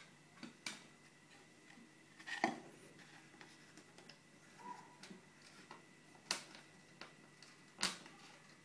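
Light wooden clicks and knocks from the sticks and panels of a small homemade wooden trap cage being handled: a handful of sharp taps spread out, the loudest about two and a half seconds in and another close to the end.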